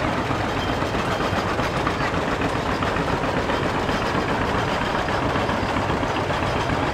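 Engines of several tractors running steadily as they pass.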